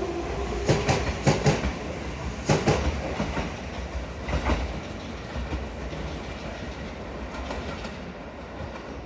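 Train wheels clicking over rail joints in pairs, heard from inside a passenger car. The clicks come further apart and stop about halfway through while the running rumble fades, as the train slows under emergency braking.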